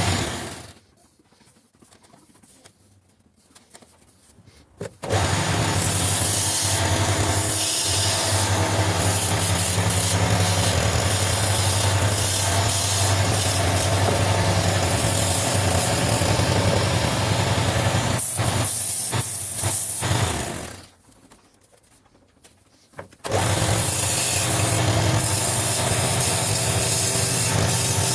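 Wood lathe running with a turning chisel cutting the spinning wood: a steady motor hum under a coarse scraping hiss. The sound dies away twice, just after the start and about two-thirds of the way through, and each time comes back abruptly a few seconds later.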